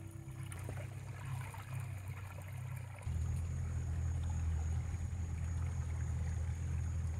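Pontoon boat's outboard motor running steadily with water washing along the hull; the low rumble gets louder about three seconds in.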